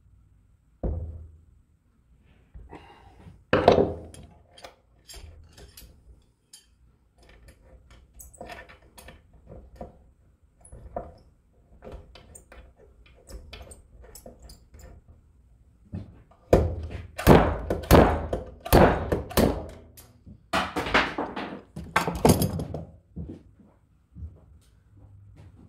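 Slide hammer knocking against its stop, pulling the old thermostat out of a transmission thermostat block held in a vise. A few separate heavy knocks early, scattered light taps, then a quick run of hard blows in the last third as the thermostat works loose.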